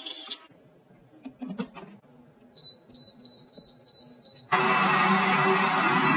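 Water pouring ends at the start, a few light clicks follow, then a high-pitched string of beeps from a high-speed blender's touch control panel. About four and a half seconds in, the blender's motor starts and runs loudly and steadily, blending fruit chunks with water.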